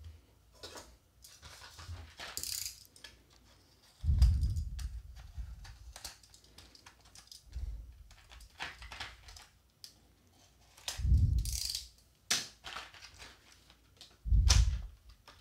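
A snap-off utility knife slitting open the cardboard backing of a plastic blister pack, then the blister being handled, with scraping, small clicks and four dull thumps.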